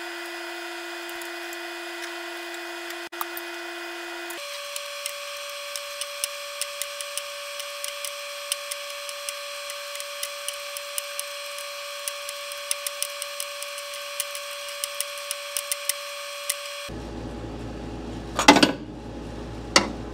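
Sped-up, pitch-raised sound of an open-end wrench turning the press bolt of a crank sprocket puller: a steady high hum with many quick, irregular clicks and clinks, its pitch jumping higher about four seconds in. Near the end the sound returns to normal speed and there are two loud metallic knocks.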